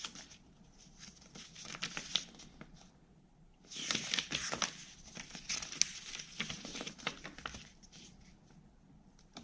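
Paper rustling and crinkling as a folded instruction manual is handled and its pages turned, with light clicks and a louder rustle about four seconds in.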